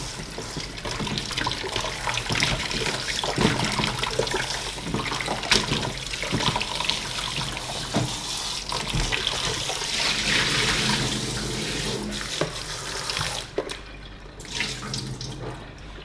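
Kitchen tap running into a plastic basin in a stainless steel sink, with hands swishing dried fish in the water for a clean-water rinse. The tap is shut off about three seconds before the end, leaving sloshing and dripping.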